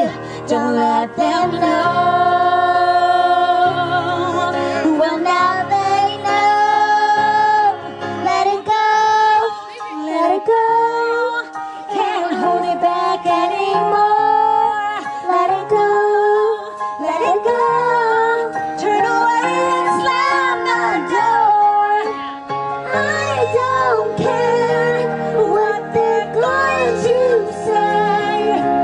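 A young girl singing a pop song into a microphone over a music backing track, with held notes.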